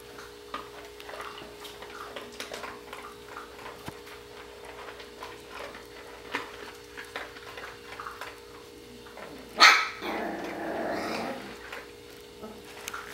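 Border collie puppies playing and scuffling, with small yips and growls. About ten seconds in there is one loud sharp sound, followed by a second or so of growling.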